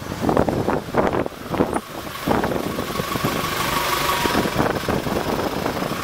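Road traffic: cars driving past at close range, with engine and tyre noise. From about two seconds in it settles into a steadier vehicle noise as a small truck draws near.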